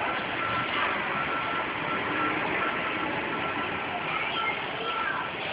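Steady crowd noise in a covered fair arena, with a vehicle's reversing alarm beeping at an even pace through it.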